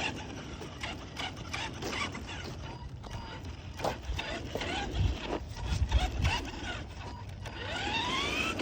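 Electric motor and gear drivetrain of a radio-controlled off-road truck, whining and clattering as it drives, with a few loud low thumps around the middle. Near the end the motor whine rises steadily in pitch as the truck accelerates.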